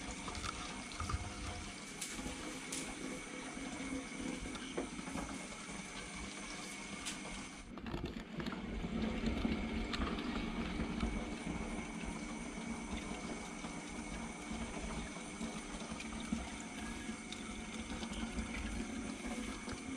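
Water running and trickling steadily in a planted aquarium, a little louder from about eight seconds in, with a few faint clicks.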